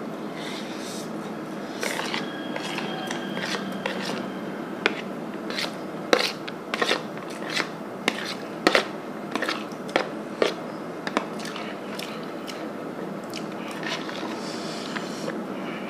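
Eating instant noodles: chewing, then a metal spoon clicking and scraping against a plastic plate to gather the last noodles, with a run of sharp clicks in the middle stretch.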